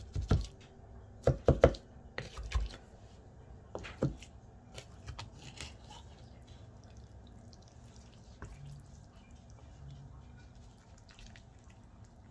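Wooden spatula knocking and scraping against a speckled enamel roasting pan as a portion of cheesy spaghetti squash bake is cut and lifted out. A quick cluster of knocks comes in the first few seconds, then only faint soft taps.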